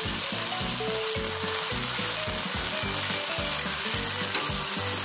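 Bread slices spread with a cream and vegetable paste frying face-down in ghee on a hot non-stick tawa: a steady sizzle.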